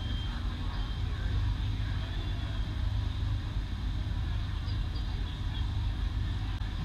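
Demolition derby cars' engines running, a steady low rumble.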